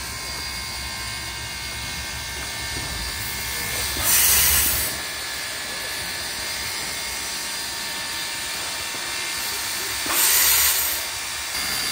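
Steam locomotive releasing steam: two loud hissing bursts, each about a second long and some six seconds apart, over a steady lower hiss.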